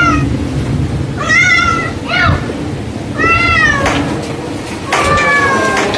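A domestic cat meowing four times, about a second apart, each call rising and falling in pitch, the last one longer and steadier.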